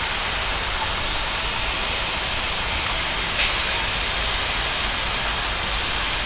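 Steady, even hiss of aircraft and ground-vehicle noise on an airport apron, with a short sharp tick about three and a half seconds in.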